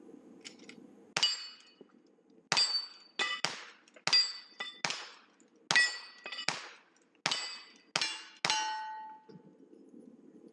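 A rapid string of about a dozen rifle shots at steel targets, each crack followed by the ringing of the struck steel plate, coming every half second to a second. The last ring, a lower tone, hangs on longest.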